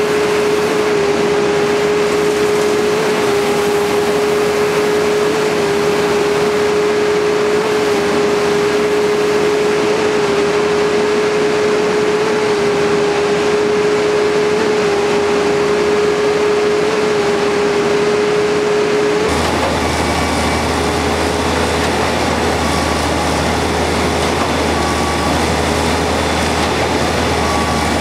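Concrete-pumping machinery running steadily, with a steady high-pitched whine; about two-thirds in the sound changes to the deeper, steady running of the boom pump truck's diesel engine.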